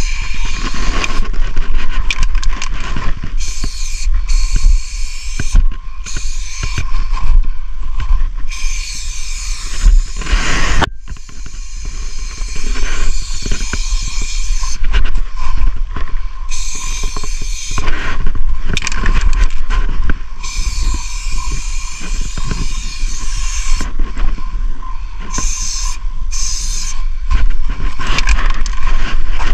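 Aerosol spray paint can hissing in bursts of one to three seconds, starting and stopping repeatedly as black outlines are sprayed, over a steady low rumble.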